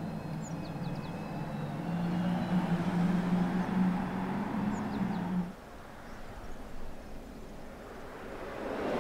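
Audi A6 e-tron concept's electric drive hum, a steady low tone that cuts off suddenly about halfway through, leaving quieter open-air sound. Birds chirp briefly over it.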